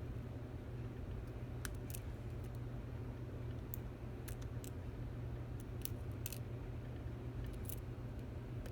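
Light, scattered clicks of a lock pick and tension wrench working the pin stack inside a Stanley 24/7 padlock while it is being picked, over a steady low hum.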